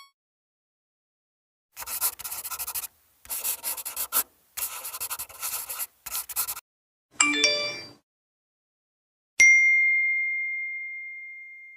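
A run of separate sound effects: three stretches of scratchy rubbing noise starting about two seconds in, a short sparkly flourish of bright tones about seven seconds in, then a single clear ding struck near nine and a half seconds that rings out slowly.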